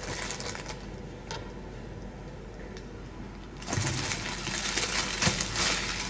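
Plastic packaging rustling and crinkling as a food storage container is handled, starting a little past halfway with many quick crackles. Before that, only a faint hiss and a single light click.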